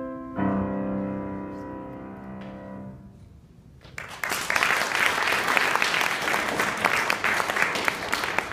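Grand piano playing a final chord, struck once about half a second in and left to ring and fade away. From about four seconds in, an audience applauding.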